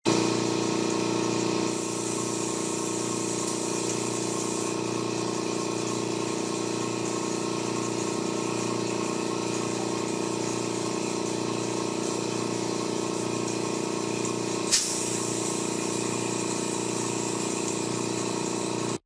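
Spin coater running steadily, a mechanical hum with hiss while it spins a substrate coated with lead iodide solution. The level drops slightly about two seconds in, and there is one sharp click near the end.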